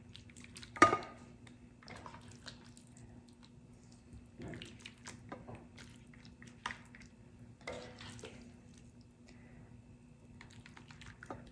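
Metal ladle scooping a watery meat-and-bean mixture out of a Dutch oven and spooning it onto polenta in a glass baking dish: soft wet plops and squelches, with a sharp clink of the ladle about a second in and smaller clinks later.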